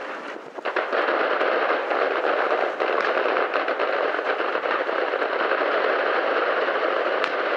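Fireworks display: a few separate bangs, then from about a second in a dense, continuous barrage of rapid crackling firework reports.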